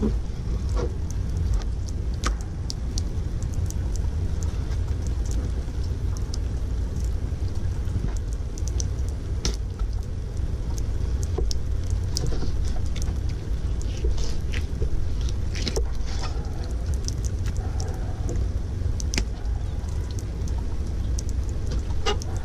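Rain falling on and around the camera: a steady low rumble with many scattered sharp ticks of drops striking it.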